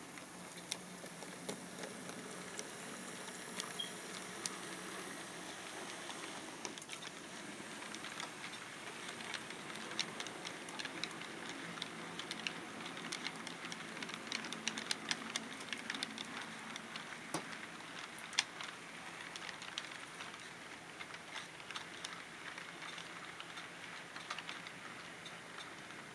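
HO scale model freight train of hopper cars rolling past, its wheels making quick irregular clicks on the track over a faint steady motor hum. The clicking grows thickest midway through as the cars pass closest, then thins out.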